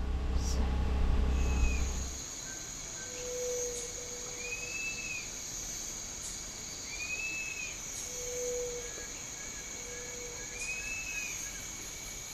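Insects shrilling in a steady high drone, with a bird giving a short arching whistle every two to three seconds and a few soft lower notes. A low rumble, the loudest part, stops about two seconds in.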